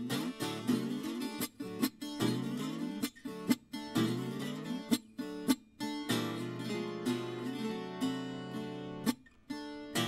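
Viola caipira (Brazilian ten-string folk guitar) playing solo instrumental music. Quick plucked runs of notes give way about six seconds in to slower chords left to ring, with a couple of short breaks.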